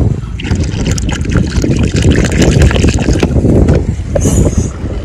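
Wind buffeting the microphone at the seashore: a loud, steady low rumble with many small crackles through it.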